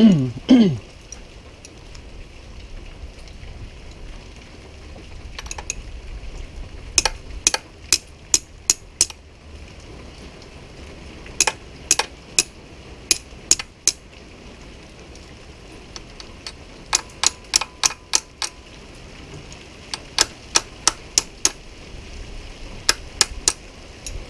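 Sharp light taps in bursts of about five to eight, roughly three a second, with pauses of a few seconds between bursts: a hand tool tapping on metal while a filter is worked into a fuel injector of a 2001 Yamaha 150 HPDI outboard.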